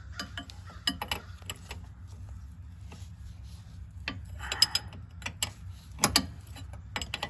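Hand tools working on a power steering line fitting: irregular sharp metallic clicks and knocks, bunched into short flurries about four and six seconds in, over a low steady hum.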